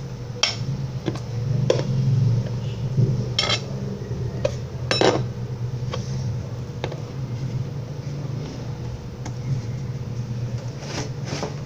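Scattered sharp clinks and taps of a utensil against plastic slime containers or a bowl during slime mixing, about seven in all, over a steady low hum.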